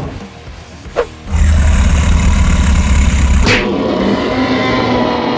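Dubbed action sound effects over background music: a sharp click about a second in, then a deep rumbling blast for about two seconds, ended by a sharp hit, followed by a sustained layered effect.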